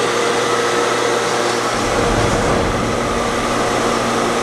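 Electric-motor-driven centrifugal pump with double mechanical seals running steadily just after start-up: a steady hum with several fixed tones over a constant noise, and a low rumble that swells for a second or two about two seconds in.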